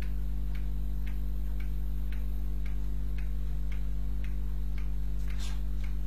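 Steady low hum with faint, regular ticks about twice a second, like a clock ticking.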